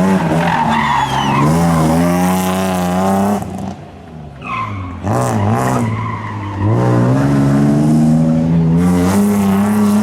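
Classic rally car's engine pulling hard, revs climbing, then dropping sharply about three and a half seconds in at a lift-off or gear change. The revs climb again and hold high before another short drop near the end.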